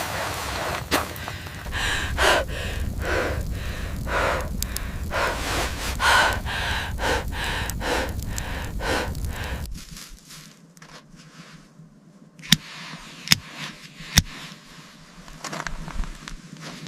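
Heavy, irregular breathing and gasps over a low wind rumble. About ten seconds in the sound cuts to something quieter, broken by three sharp clicks about a second apart.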